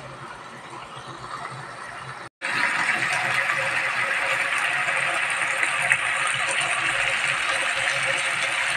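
Chicken adobo in a soy-sauce glaze bubbling in a nonstick frying pan, first a soft simmer, then, after an abrupt break about two seconds in, a louder steady sizzle with fine crackling. The sauce has reduced almost dry and the chicken is now frying in the separated oil.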